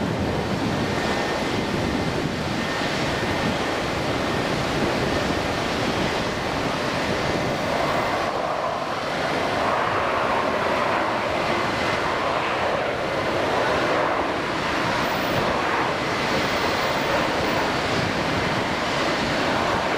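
Distant roar of an Airbus A320-232's IAE V2500 jet engines during landing, with wind on the microphone. The roar swells from about eight seconds in as the airliner rolls out on the runway, typical of reverse thrust being applied.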